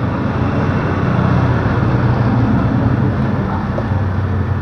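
Steady low rumble of a running engine nearby, with a hum held at one pitch.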